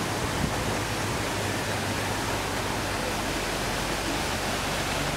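Steady rush of water pouring from a siphon outlet as the siphon draws the lake down.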